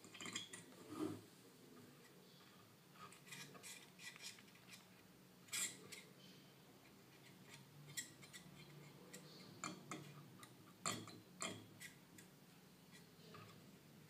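Faint, scattered clicks and light scrapes of a thin tool spreading thermal paste across a CPU's metal heat spreader.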